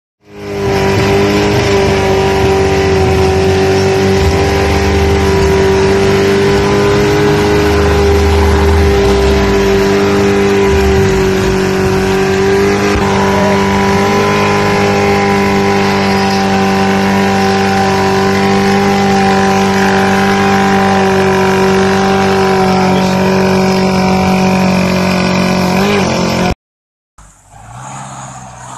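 Off-road 4x4 engine held at high revs, a loud, steady droning pitch as the vehicle churns through deep mud. The sound cuts off abruptly near the end.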